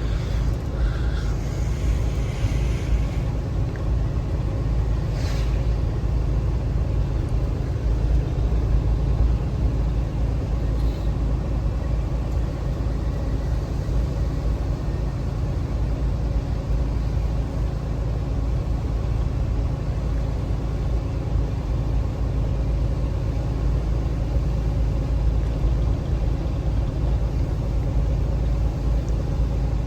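Steady low road rumble of a car driving, heard from inside the cabin, with a short click about five seconds in.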